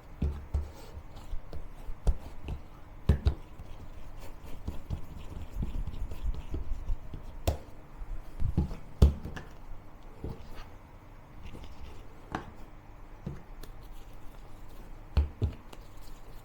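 Bread dough being kneaded by hand and cut into portions on a work surface: irregular thumps and knocks, the loudest about nine seconds in.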